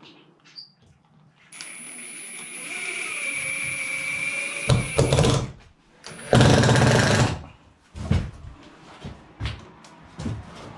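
A power tool running steadily for a few seconds, then a louder, harsher burst of about a second, followed by scattered knocks and clicks.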